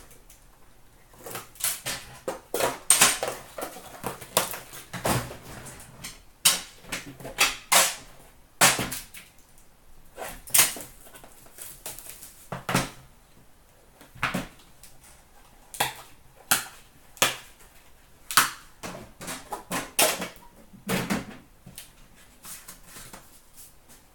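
Metal tin of hockey cards being handled and opened on a glass counter: a string of irregular sharp clicks, taps and clatters of the lid and the tin.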